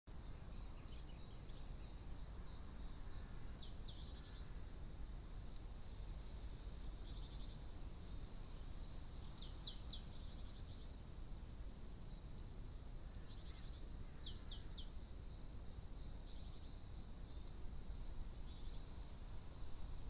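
Small garden songbirds calling: every few seconds a quick run of three or four high notes, each falling in pitch, with buzzy chattering in between, over a steady low background rumble.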